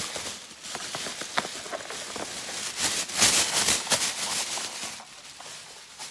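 Thin plastic shopping bag rustling and crinkling as it is grabbed and lifted, loudest about three seconds in.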